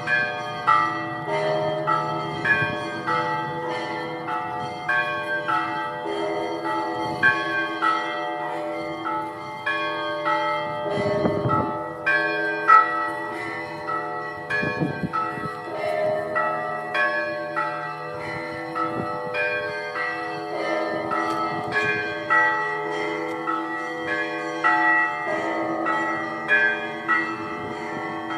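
Russian Orthodox church bells rung together. Small bells are struck in a quick repeating pattern over the ringing of larger bells, and a deep bell sounds a few times near the middle.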